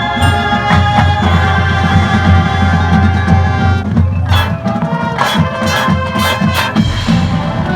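High school marching band playing: held chords over a pulsing low drum line, with a run of sharp cymbal crashes from about halfway through.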